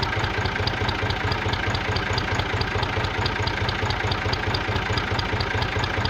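Tractor engine idling: a steady chugging run with a regular high tick about five times a second. It cuts in and out abruptly with the shot, like an added sound effect.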